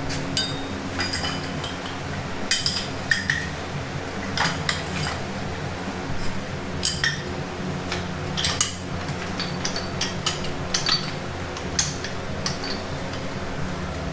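Steel parts of a tube bender clinking and rattling irregularly as its die, pins and tube are handled and set, over a steady low hum.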